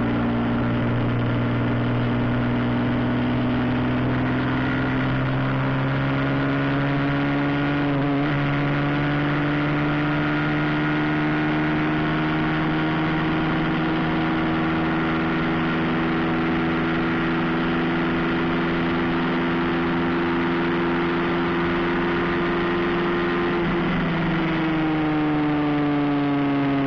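Motorcycle engine running at highway speed, its pitch climbing slowly and steadily as the bike gains speed, then dropping near the end as it slows. Steady wind rush underneath.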